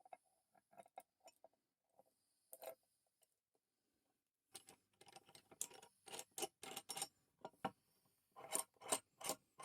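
Small steel parts of a vintage Craftsman pipe wrench being handled and fitted back together: faint light clicks and taps, then about halfway a run of short metal-on-metal scraping strokes, about three a second.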